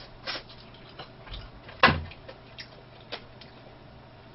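Light clicks and taps of food and containers being handled on a table, with one sharp knock about two seconds in.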